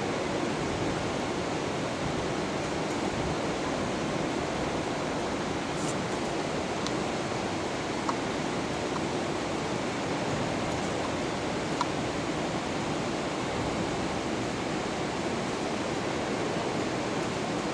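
Steady, even rushing room noise of a large empty hall, with two faint clicks about eight and twelve seconds in.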